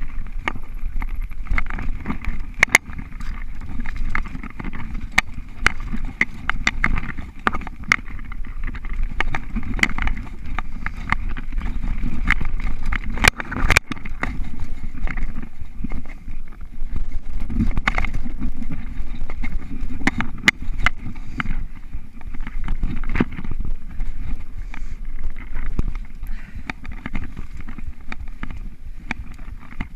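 Mountain bike rolling fast over a bumpy dirt singletrack, picked up by a GoPro camera: a steady rumble of tyres and wind with frequent sharp clicks and rattles from the bike over bumps, and a burst of heavy knocks about halfway through as the bike hits a rough patch.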